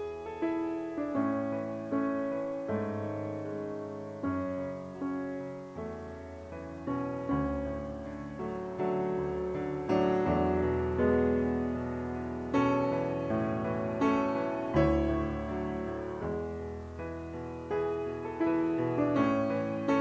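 Background music: a gentle piano piece, chords and melody notes struck and left to ring and fade.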